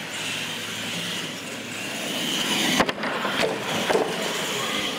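Radio-controlled monster trucks driving on a smooth concrete floor, their electric motors whining steadily, with two sharp knocks about three and four seconds in.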